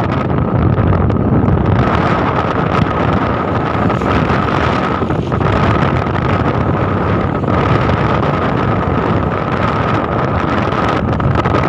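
Wind rushing steadily over the microphone of a moving vehicle, with the vehicle's engine running underneath and a steady thin tone throughout.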